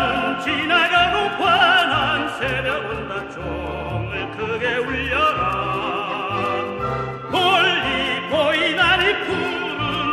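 Operatic singing with a wide vibrato over orchestral accompaniment; a new loud phrase comes in about seven seconds in.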